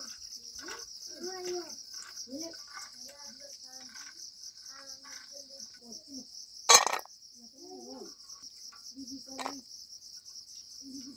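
Crickets chirping in a steady, high, rapidly pulsing drone, with broken snatches of faint voices. A single sharp knock comes about two-thirds of the way through and is the loudest sound.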